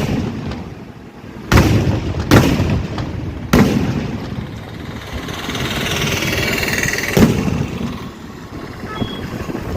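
4.5-inch aerial firework shells going off in quick succession: three booms close together, a fourth a few seconds later, each with a rumbling echo. A hissing crackle rises between the third and fourth.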